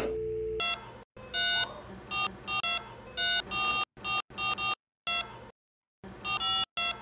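A pink Minnie Mouse toy telephone beeps electronically as its dial buttons are pressed one after another: about a dozen short tones in quick groups, with a pause of about a second around five seconds in. A steady low tone sounds for the first half second.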